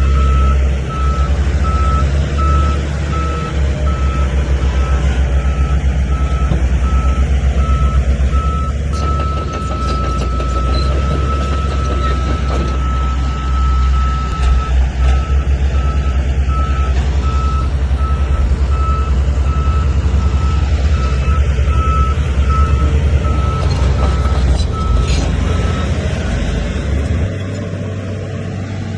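Heavy diesel earthmoving machine running with a deep rumble, its reversing alarm beeping repeatedly at one pitch, stopping a few seconds before the end, after which the engine drops quieter.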